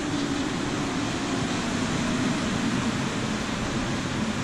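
Rubber-tyred Paris Métro train pulling into the platform and slowing: a steady rush of running noise with a low hum that slowly falls in pitch as it brakes.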